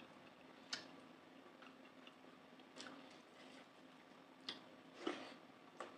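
Quiet sounds of eating rice and curry by hand from a banana leaf: a few scattered soft clicks and squishes.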